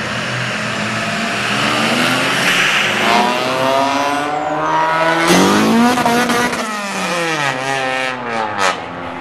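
A pickup truck's engine revving hard as it accelerates past, its pitch climbing and then dropping at each gear change. The loudest climb comes about five seconds in, and there is more revving with rising and falling pitch near the end.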